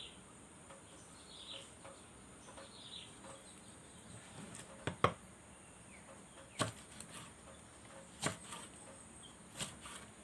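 A handful of sharp knocks or taps a second or more apart, the loudest about halfway through, over a steady high insect drone and a couple of faint bird chirps.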